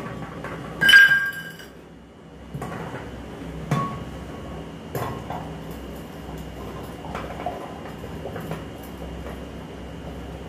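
Stainless-steel cookware clinking: a steel bowl set into a steel kadhai rings clearly about a second in, followed by a few lighter knocks and clinks as a steel plate is lowered into the pan. A faint steady high tone runs underneath from a couple of seconds in.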